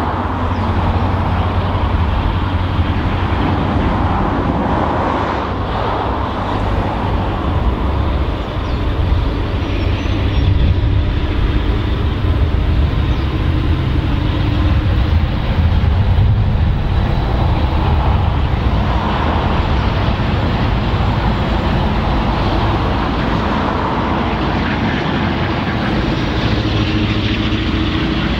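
Diesel freight locomotive running under load as it slowly approaches at the head of a train, its engine a steady deep drone that grows somewhat louder in the middle.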